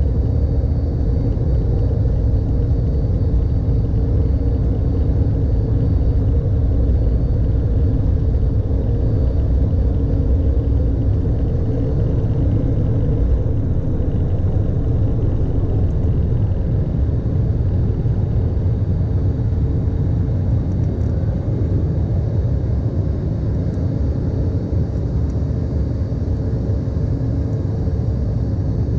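Embraer E195's CF34 turbofan engines at takeoff thrust, heard inside the cabin by the wing: a loud, steady roar with deep rumble through the takeoff roll, liftoff and initial climb.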